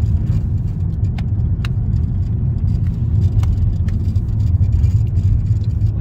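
Steady low road and engine rumble of a car driving, heard from inside its cabin, with a few light clicks in the first half.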